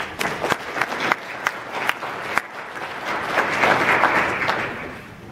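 Audience applauding: a few separate claps at first, swelling to full applause about three to four seconds in, then dying away near the end.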